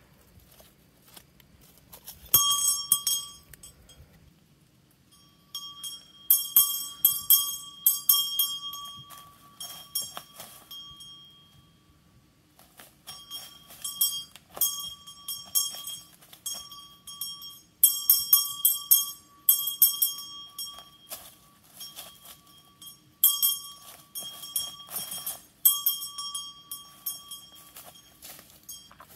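Small brass hand bell rung by hand in spells of rapid shaking, a bright clear ring repeated many times with short pauses between spells.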